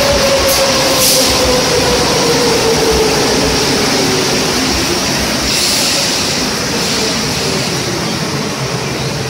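Subway train pulling into a station: a loud, steady rumble with a whine that slowly falls in pitch as the train slows.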